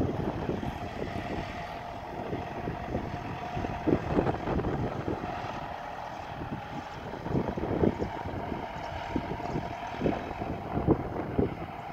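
Tractor engine running steadily as it tows a slurry tanker across a field, a constant drone with a few louder low rumbles now and then.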